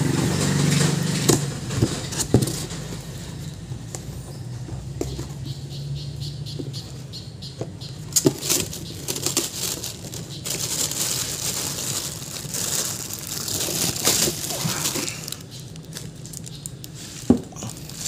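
Cardboard box flaps being handled and plastic wrapping rustling, with a few sharp knocks. A low steady hum runs under the first few seconds.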